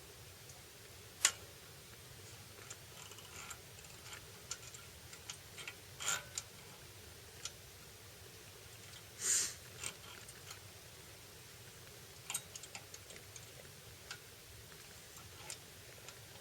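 Faint, irregular light clicks and taps with no engine running, a sharper click about a second in and a short rustling swish about nine seconds in.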